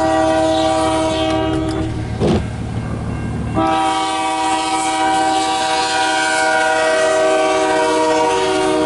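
Diesel locomotive's multi-chime air horn sounding a chord, first a blast of about two seconds, then after a short gap a long blast of about five seconds, as the train approaches.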